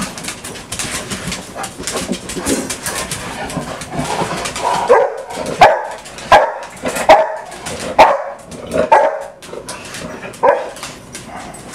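A dog barking repeatedly: a run of about eight short barks, less than a second apart, starting about five seconds in and stopping shortly before the end.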